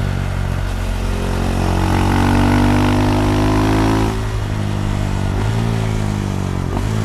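KTM Duke 390's single-cylinder engine through an Akrapovic slip-on exhaust, decatted, pulling under throttle with its note slowly rising and growing louder, then dropping back as the throttle closes about four seconds in.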